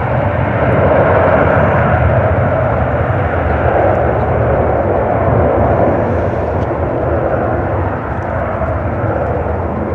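Jet airliner taking off, a steady engine roar that swells about a second in and eases slowly toward the end.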